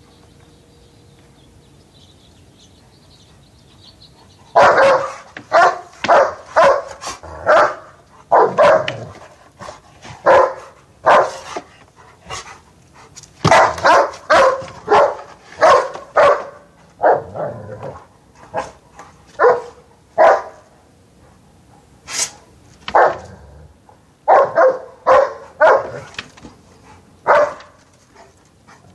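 Dog barking repeatedly in quick runs of several barks, starting about four and a half seconds in, with short pauses between runs.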